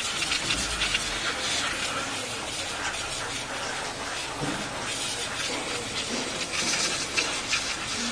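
Aerosol brake-cleaner spray hissing on and off onto a car's rear drum-brake shoes and backing plate, washing off brake dust and rust. The spray is loudest near the end.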